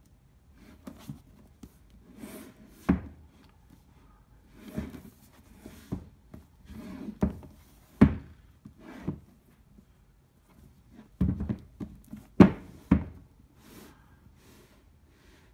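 Shrink-wrapped cardboard projector box handled and turned over on a table: rubbing and crinkling of the plastic wrap, with several dull thunks as the box is set down, the loudest near the end.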